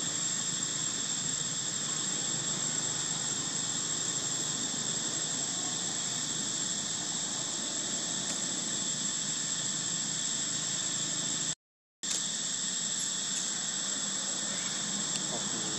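Steady high-pitched drone of an insect chorus in the trees, an unchanging hiss with a constant shrill tone, cut off for a moment about twelve seconds in.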